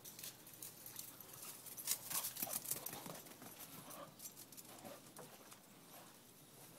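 Faint footsteps and crackling steps on grass and dry leaves, a quick run of light patters that is busiest about two to three seconds in.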